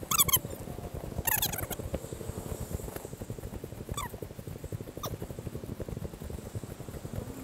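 A few short, high calls near the start, with fainter rising chirps about four and five seconds in. A steady low rumble of wind on the microphone runs underneath.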